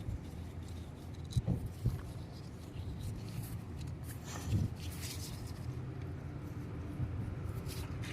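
A few light clicks and knocks of a hand wrench working the A/C hose fitting, over a steady low rumble.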